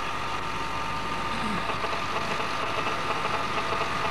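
Steady hum and hiss with a faint constant tone, the background noise of an old microphone recording during a pause in Quran recitation; a faint voice sounds briefly about a second and a half in.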